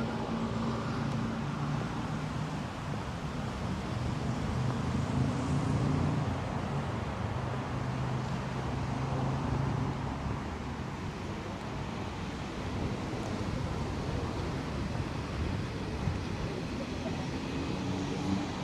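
City street traffic: a steady wash of road noise with a vehicle engine's low hum, strongest in the first half.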